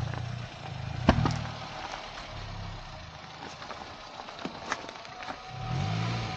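Honda Amaze sedan's engine running at low revs as the car crawls over a rocky dirt track, its note swelling briefly near the end. Sharp knocks of stones under the tyres, the loudest about a second in.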